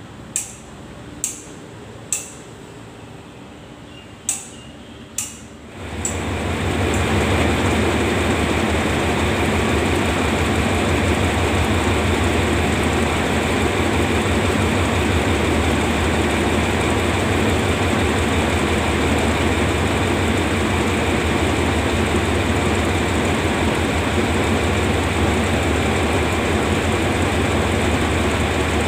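Diesel locomotive D.4512 at the head of a freight train, its engine running with a steady deep rumble that starts abruptly about six seconds in and holds level. Before that, a few sharp metallic clicks about a second apart.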